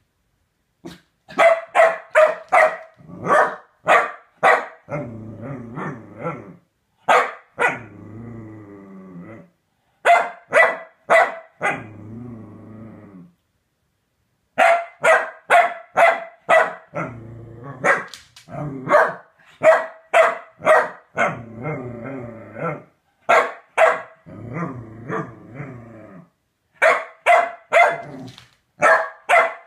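Pembroke Welsh Corgi barking in quick runs of several sharp barks, with low growls between the runs, worked up over a large femur bone.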